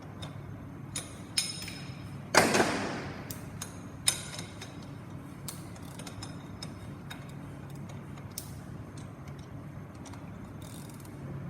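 Metal hand tools clicking and clinking on a GM power steering pump pulley installer as a wrench is fitted and worked. There is one louder ringing clank about two and a half seconds in, then scattered light clicks over a low steady hum.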